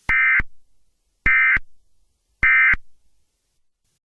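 Emergency Alert System end-of-message (EOM) data bursts: three short buzzing digital tone bursts about a second apart, marking the end of the alert broadcast.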